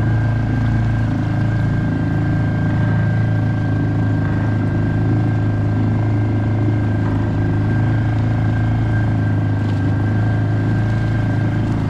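A small boat motor running steadily at cruising speed: a constant low hum with a faint, steady high whine above it.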